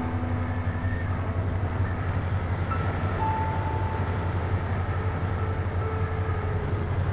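Steady low rumbling hum with air rush, picked up by a keychain camera riding on an RC Phoenix 2000 glider in flight.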